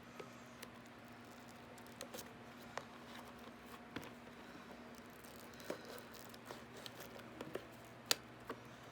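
Faint scattered clicks, taps and light rustling of small cardboard card-product boxes being handled, the sharpest tap about eight seconds in, over a steady low electrical hum.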